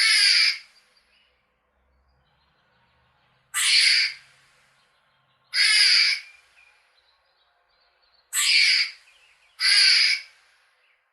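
Squirrel giving five harsh, drawn-out calls, each about half a second long, a few seconds apart, with the last two close together.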